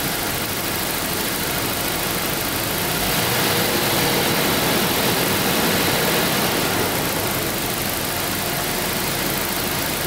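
Jaguar V12 engine running steadily at a fast idle, getting a little louder for a few seconds in the middle before easing back.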